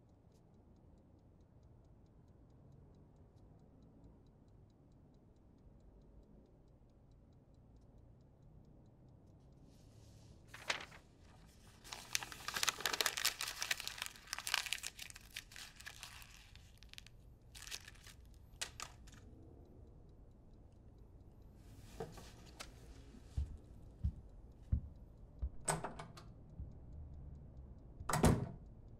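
Sheets of paper being torn and crumpled by hand: a few seconds of dense rustling and ripping about halfway through, then scattered light clicks and knocks, with one louder knock near the end.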